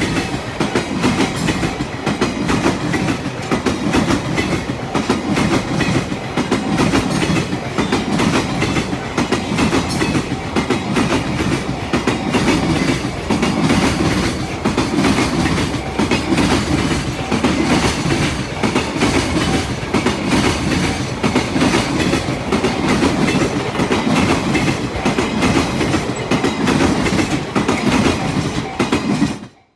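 A train passing close by, its wheels clattering rhythmically over the rail joints without a break for nearly half a minute. The sound cuts off abruptly near the end.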